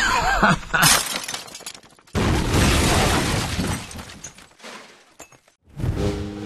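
Cartoon crash sound effect: a sudden loud smash with breaking glass about two seconds in that fades away over about three seconds, after a short cartoon voice exclamation. Brass jazz music comes in near the end.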